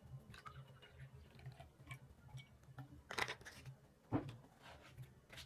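Faint handling noises: light scattered clicks and two short scuffs about three and four seconds in, over a faint low hum.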